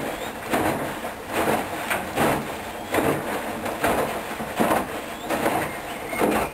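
Hoover Dynamic Wash 10+ washing machine in its wash phase, the drum tumbling the laundry with a swish of water and clothes a little more than once a second.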